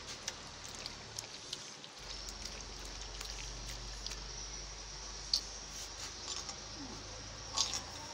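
Wet squishing and small clicks of raw beef strips being squeezed and mixed by hand with sauces and vinegar in a clay bowl, over a steady low hum and hiss.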